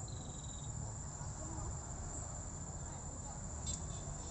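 Insects chirring: a steady high-pitched drone throughout, with a short pulsed trill near the start and a brief rapid clicking near the end, over a low rumble.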